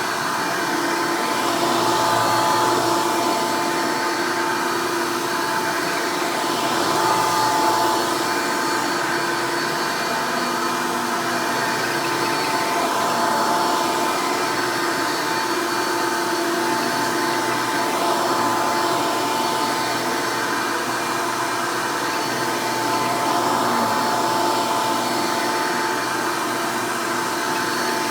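Hoover Elite upright vacuum cleaner motor running steadily and pretty loud, with a steady whine and gentle swells in level.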